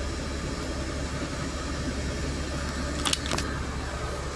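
Engine and road noise inside a moving vehicle's cab: a steady low drone. Two quick sharp clicks come close together about three seconds in.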